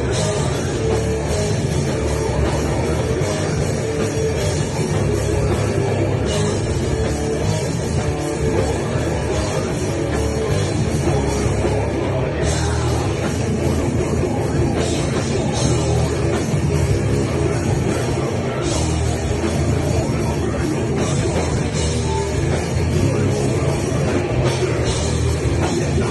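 Loud live heavy rock band playing at full volume, with a drum kit driving it, without a break.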